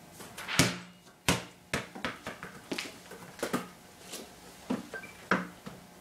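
Basketball pumped to only 2 psi dropped onto a concrete floor. It strikes hard about half a second in, then bounces several more times at quickening intervals as it loses height and settles, the low bounces of an underinflated ball. A few scattered knocks follow as it is picked up.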